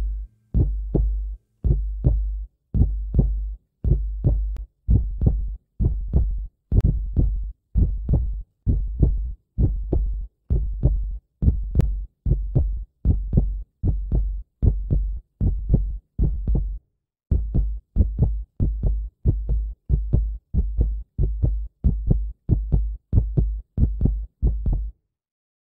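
Heartbeat sound effect: an even double thump, lub-dub, about twice a second. It pauses briefly around two-thirds of the way through, then stops shortly before the end.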